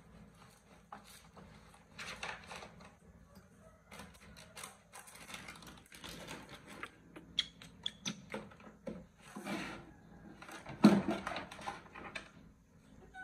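Rustling and light clattering of household items being handled on a kitchen shelf, with a louder sharp knock near the end.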